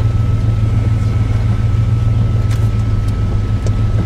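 Car running, heard from inside the cabin: a steady low drone of engine and road noise, with a few faint ticks in the second half.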